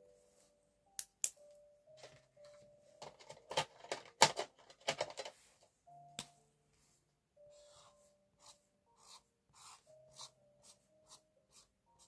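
Pen and marker handling on paper: two sharp clicks about a second in, a burst of clicks and taps as a felt-tip marker is uncapped, then short scratchy strokes of the marker coloring on paper, about two a second. Soft background music with mallet-like notes plays underneath.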